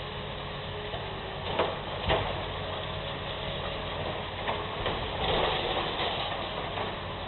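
Heavy demolition machine's engine running steadily, with two sharp crashes of breaking material about one and a half and two seconds in, and a longer crunching, rattling stretch of debris about five seconds in.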